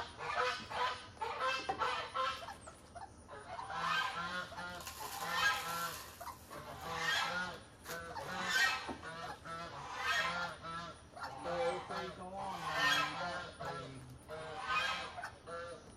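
Domestic geese honking over and over, one loud call every second or so.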